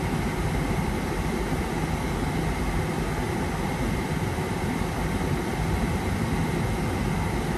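Steady rush of air from the dashboard vent of a 2008 BMW X5, its climate-control blower fan running, with the idling engine's hum underneath.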